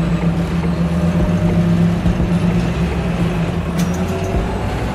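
Motor vehicle engine running steadily: a low, even hum over a rush of noise.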